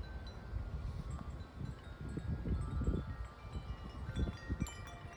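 Wind chimes ringing in gusty storm wind, several tones struck and overlapping, over wind gusts rumbling on the microphone.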